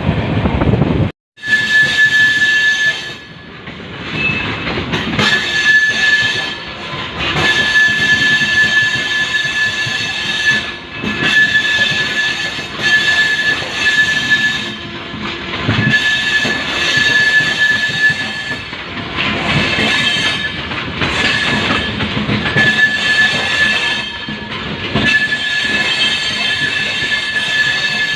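Sadbhavna Express train running on the track, its wheels giving a high, steady squeal that breaks off and returns again and again over the rumble of the running gear.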